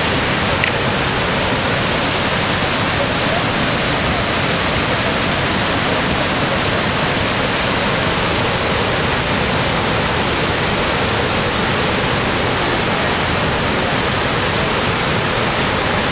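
Niagara Falls: loud, steady rushing of the water pouring over the brink and crashing into the gorge below, an even wall of noise that does not change.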